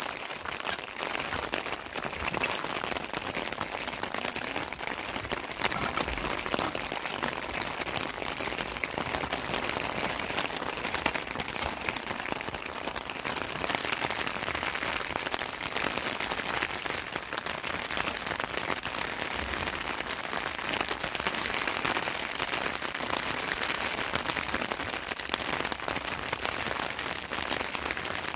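Heavy rain pouring down steadily, a dense patter of drops striking a surface.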